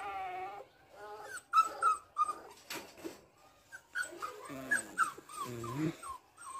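Golden retriever puppy whimpering and yipping: a wavering whine at the start, then a string of short, high yelps, with more of them about four to five and a half seconds in.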